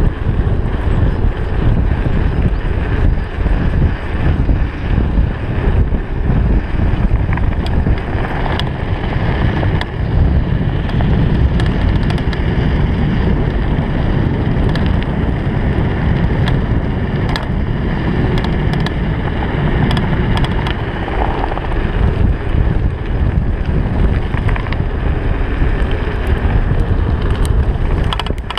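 Wind rushing over a handlebar-mounted GoPro on a Trek 4500 mountain bike riding fast downhill on a gravel road, with tyres on gravel and frequent sharp clicks and rattles from the bike over the rough surface.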